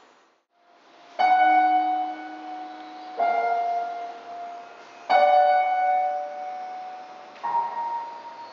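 Slow piano music. After a brief hush, four notes or chords are struck about two seconds apart, and each rings on and fades.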